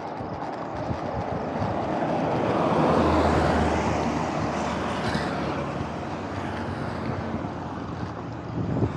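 Wind and road noise from a road bike on the move, with a small lorry's engine passing in the opposite lane, swelling to its loudest about three seconds in and fading over the next few seconds.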